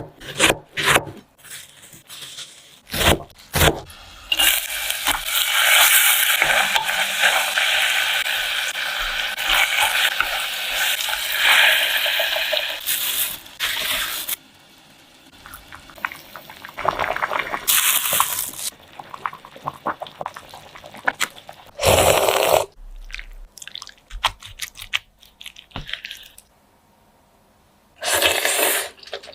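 Kitchen cooking sounds: a few sharp knocks and clatters, then about ten seconds of steady watery hiss, and later three short bursts of it.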